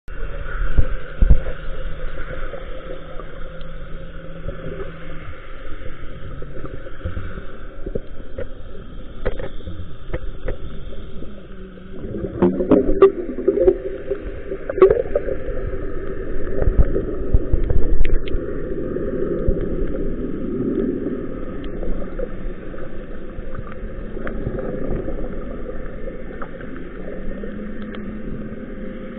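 Water sloshing and gurgling picked up by a camera held underwater while snorkelling, muffled and continuous, with scattered knocks. It gets louder and rougher for a few seconds about halfway through.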